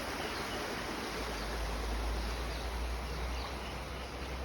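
Creek water rushing steadily, an even hiss with a low rumble underneath.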